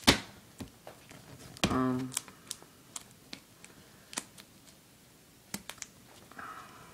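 Scattered small clicks, taps and rustles of handling: a plastic team bag (card sleeve) being worked open while the handheld iPod that is recording is gripped and bumped. The loudest click comes right at the start, and a brief vocal sound comes about two seconds in.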